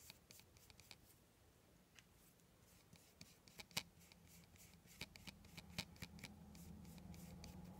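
Faint scratchy strokes and light ticks of a flat paintbrush working acrylic paint onto a thin clear plastic sheet.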